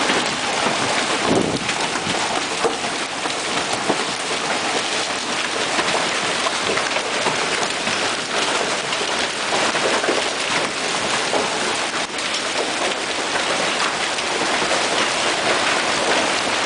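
Large hail, about baseball-sized, pelting down with heavy rain: a steady, dense din of countless hard impacts.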